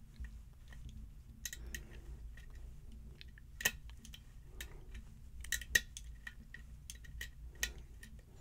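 Pin-tumbler lock being picked: scattered small metallic clicks and ticks from the pick and tension wrench working the pins in the keyway. The sharpest clicks come about three and a half seconds in and again near six seconds.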